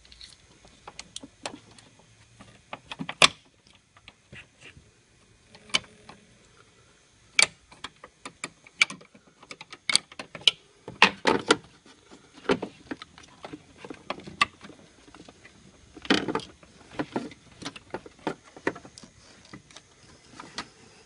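Irregular clicks, knocks and light rattles of hands and a screwdriver fitting a Bosch ABS hydraulic unit back into its bracket and seating its clips on the rubber grommets. The knocks come singly and in small clusters.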